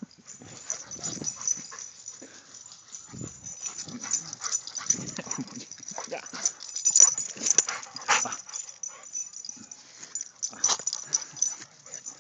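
A dog playing in grass, making irregular short breathy noises with the rustle of the lawn as it rubs and rolls in it.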